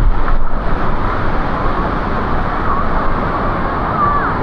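Waterfall pouring into a plunge pool: a steady, loud rush of falling water.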